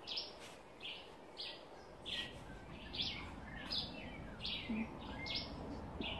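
A bird calling with short high chirps, repeating about twice a second.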